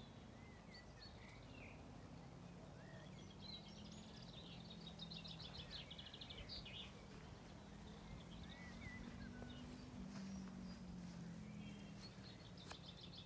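Faint outdoor birdsong: scattered short chirps and trills from small birds, over a low steady hum.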